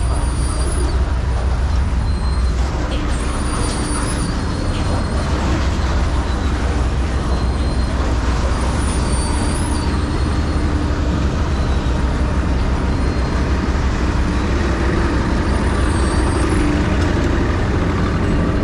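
Steady low mechanical rumble, like a running engine or vehicle, with a short high squeak recurring every few seconds.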